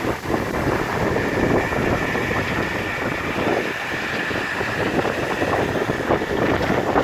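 Portable line-boring machine running, its boring bar cutting a worn pin bore on a JCB excavator boom, with a steady high whine over a rough, rushing running noise.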